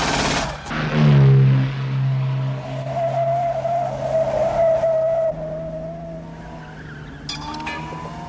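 Aston Martin DB5 and a red Ferrari racing on a mountain road, engines running hard with one steady note that jumps higher about five seconds in, and a long wavering tyre squeal through the middle. A short loud burst of noise right at the start.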